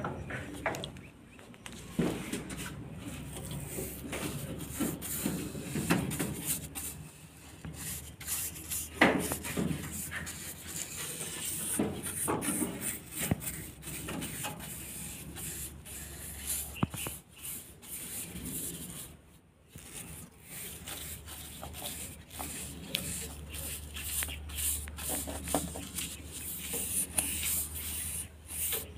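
A wet paintbrush scrubbing and dabbing on bamboo slats and wood, an irregular run of rough brushing strokes.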